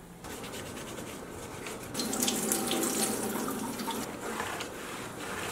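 Water running from a kitchen tap into a stainless-steel sink while a receiver faceplate is washed and wiped, the flow loudest for a couple of seconds midway.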